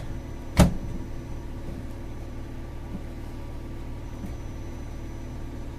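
Circuit board knocking into place as a full-length ISA accelerator card is pressed into its expansion slot and chassis guides: a sharp knock at the start, a louder one about half a second in, then a few faint ticks. A steady low hum runs underneath.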